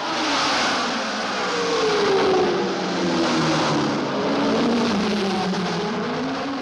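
1960s Formula One racing car engine running hard, its pitch falling slowly for several seconds and then climbing again near the end.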